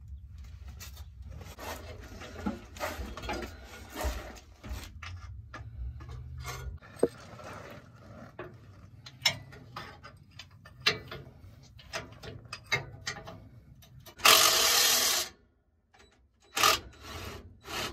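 Wrench and socket clicking, knocking and scraping on exhaust header bolts, with a work jacket rubbing against the microphone. About 14 seconds in comes a loud rasping scrape lasting about a second.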